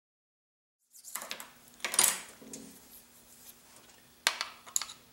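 Small metal parts and hand tools handled on a workbench: light scraping and a few sharp metallic clicks as a steel shaft and a diamond file are set down and picked up, starting about a second in, with the loudest click about two seconds in and two more near the end. A faint steady hum runs underneath.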